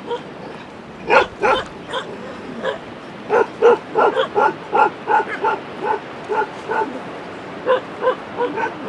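A dog barking in a quick series of short yips, starting about a second in.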